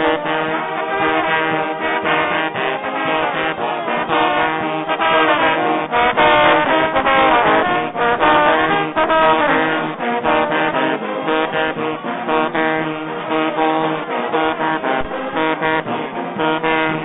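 Music with a steady beat and layered melodic parts, sounding bandwidth-limited.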